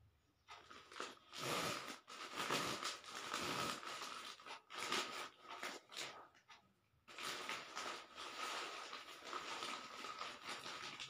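Thin plastic packaging bag crinkling and rustling in irregular bursts as hands handle it, with a brief lull a little past halfway.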